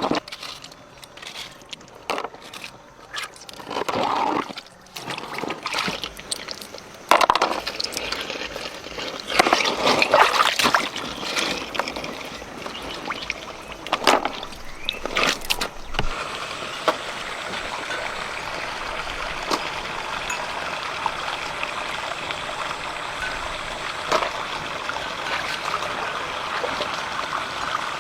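River water: irregular splashing and sloshing for about the first half, then steady running water from about halfway on.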